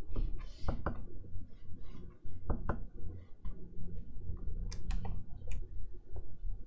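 Stylus nib tapping and scratching on the glass screen of an XP-Pen Artist 15.6 Pro pen display, a series of light clicks as strokes are drawn, with a few sharper taps around five seconds in.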